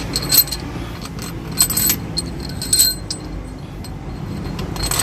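Light metal-on-metal clinks in three short bursts as steel cylinder head bolts are handled and set into the cylinder head during reassembly, over a steady low hum.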